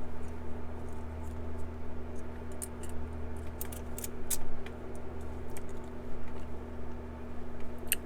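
Small metal clicks and scrapes from handling a lock and its key or tools, irregular and sparse, over a steady low hum.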